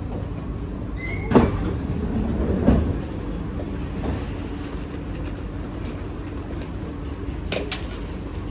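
Inside a C151A MRT train: a steady low hum with a couple of loud knocks about one and a half and three seconds in, and a lighter click near the end.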